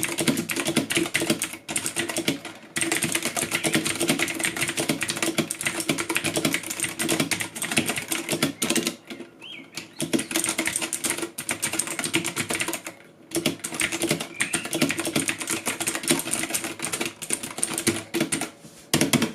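Fast typing on a mechanical keyboard: a dense clatter of key clicks in runs of several seconds, broken by a few short pauses.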